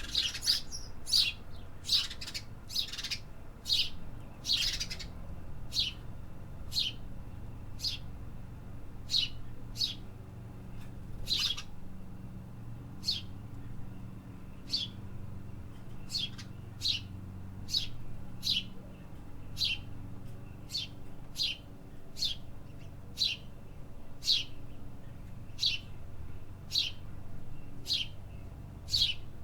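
A bird chirping over and over, single short sharp chirps about once a second, several in quick succession near the start, over a low steady rumble of city background noise.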